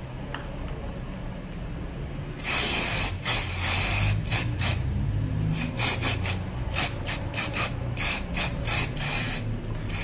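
Aerosol can of clear lacquer spraying in bursts: after a couple of quiet seconds, one longer hiss, then a quick run of many short bursts as the nozzle is pressed again and again.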